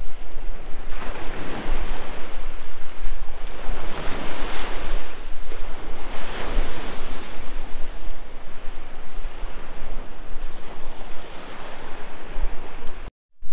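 Small waves breaking and washing up a pebbly shore, the surf swelling every couple of seconds, with wind buffeting the microphone as a low rumble. The sound cuts off suddenly near the end.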